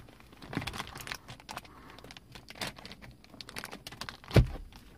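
Clear protective plastic film on a car sun visor crinkling and crackling as it is handled, with scattered clicks and one louder thump about four and a half seconds in.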